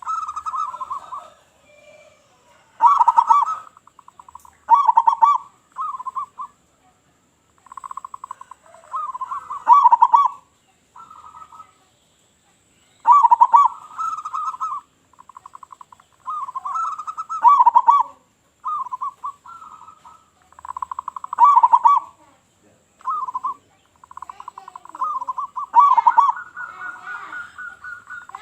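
Zebra doves (perkutut) cooing: repeated phrases of quick staccato coos one after another, with short pauses between phrases.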